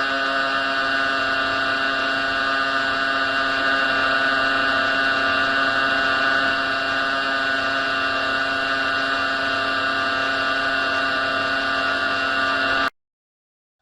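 Loud, steady electronic drone of many layered tones over a hiss, with no change in pitch, which cuts off suddenly about a second before the end.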